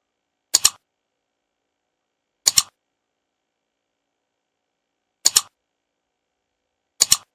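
Mouse-click sound effects for an animated Like and Subscribe button: four quick double clicks, each a press and release, about two seconds apart.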